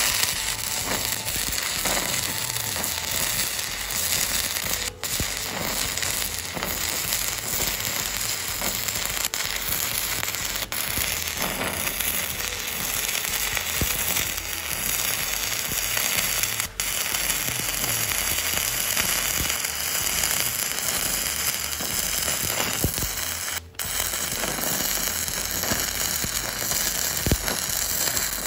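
Stick (shielded metal arc) welding with a 200 A inverter welder: the electrode's arc crackling steadily, with a few brief breaks.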